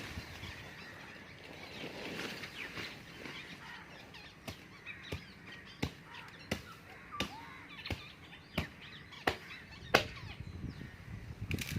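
A hand tool chopping at weeds and soil in sharp, regular strokes, about one every 0.7 seconds, starting about four seconds in. Birds call faintly in the background throughout.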